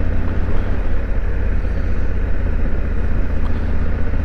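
Honda Africa Twin CRF1100's 1084 cc parallel-twin engine running steadily, a deep even drone with a constant noise haze over it.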